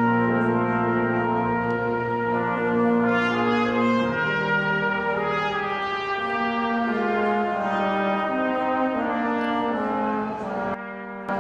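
Slow instrumental music in held chords that change every second or two, with a short dip in level near the end.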